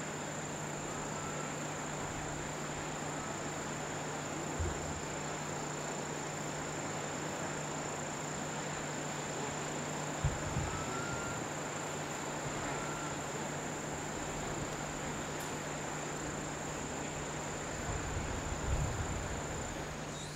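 Rushing water of river rapids: a steady even hiss, with a constant thin high-pitched whine over it and a few dull low bumps, about a quarter of the way in, halfway, and near the end.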